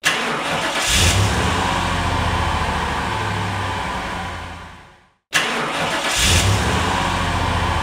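Car engine cranked by the starter for just under a second, catching with a short rev and settling into a steady idle that fades out. The same start is heard again about five seconds in.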